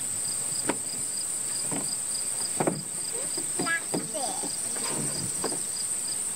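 Insects chirping: a steady high-pitched buzz with a second insect pulsing about two to three times a second.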